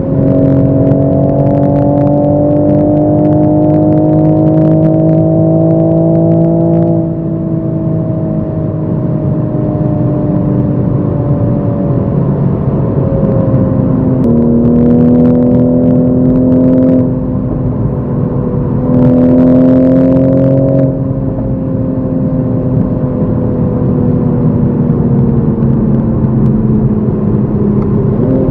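Toyota Supra MK5 engine heard from inside the cabin in sport mode, pulling up through the revs for several seconds and then easing off. About halfway there is a sudden drop in pitch like a gear change, followed by two shorter pulls. The revs then fall away slowly, with a quick rise right at the end.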